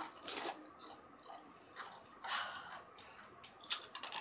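Spicy chips being crunched and chewed, in short irregular crunches, with one sharp click near the end.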